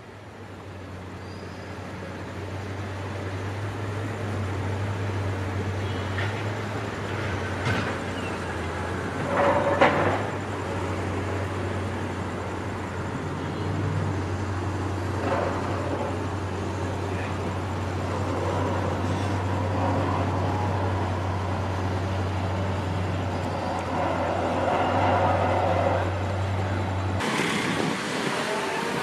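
Construction-site machinery: a steady low engine hum with scattered knocks and clanks, the loudest about ten seconds in. Near the end the hum cuts off and a different, hissier machinery noise begins.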